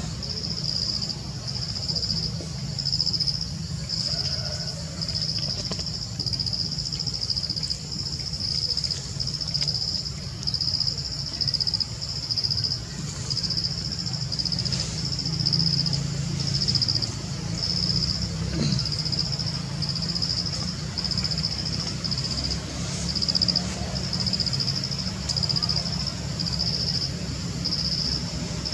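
Insects calling in a steady high-pitched chorus that pulses about once a second, over a low steady rumble.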